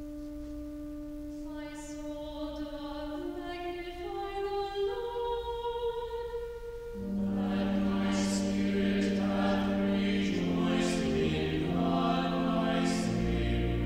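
Choral music: a held note, then a single sung line climbing step by step, and about seven seconds in a choir enters singing in harmony, louder and fuller.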